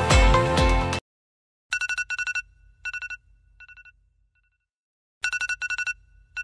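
Phone alarm ringing with a trilling, old-telephone-bell tone in two bursts about three and a half seconds apart, each fading away in softer echoing repeats. Background music cuts off about a second in.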